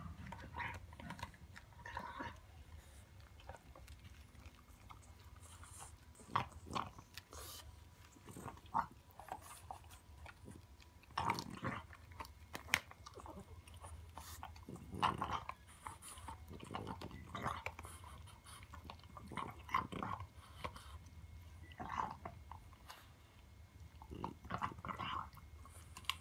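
French Bulldog puppy gnawing and chewing a pig trotter, with irregular crunching bites, some much louder than others.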